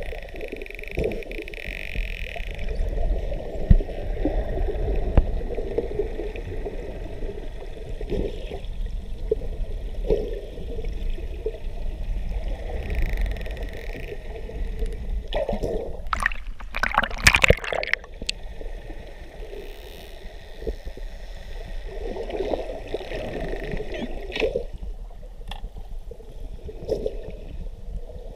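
Underwater sea sound picked up by a camera: a steady rush of water and gurgling with a low rumble. About sixteen seconds in, a louder burst of water noise lasts about two seconds.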